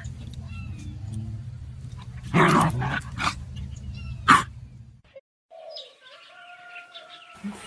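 A dog barking: three loud, sharp barks over a steady low hum, followed after a break by a quieter drawn-out call.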